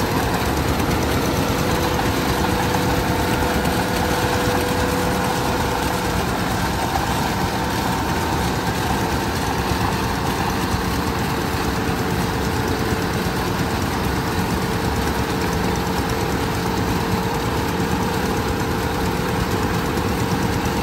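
Kubota DC-105X rice combine harvester running at work: its diesel engine and threshing machinery give a continuous, even drone with a steady whine through it.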